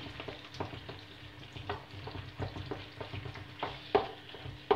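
Wooden spoon stirring and scraping thick pepper and tomato paste frying in oil in a nonstick pan, with a faint sizzle under irregular scrapes and knocks of the spoon against the pan, the loudest about four seconds in.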